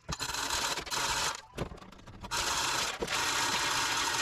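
A power tool running in two bursts, a short one and then a longer one of about two seconds, with a fast mechanical rattle.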